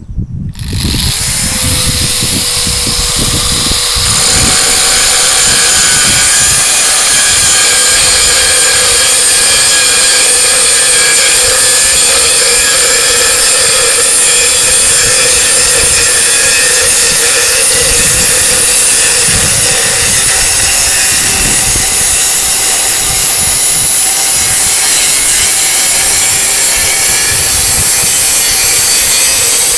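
A 5-inch variable-speed angle grinder with a Norton Expert diamond blade starts up about half a second in and cuts through a hard manufactured-stone paving slab. It runs with a steady high whine over a gritty grinding noise, getting louder at about four seconds and holding steady after that.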